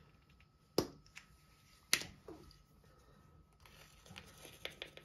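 Small plastic clicks from a spice jar being handled and opened to get at the thyme: two sharp clicks about a second apart, then a few lighter ticks near the end.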